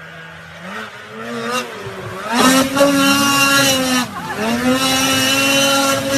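A motor engine revving up in steps, dipping once, then running steadily at high revs.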